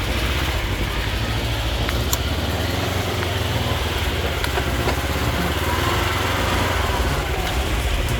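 UTV engine running steadily while driving, with a low drone and a few scattered clicks and rattles over it.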